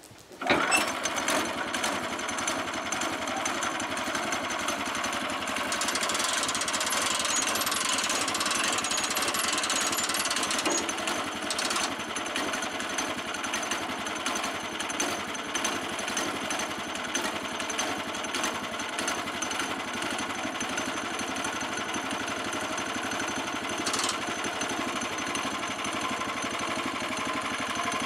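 Small single-cylinder gasoline engine on a portable bandsaw sawmill, pull-started and catching within the first second, then running steadily with a rapid, rattling note. It runs a little louder and harsher for a few seconds near the middle.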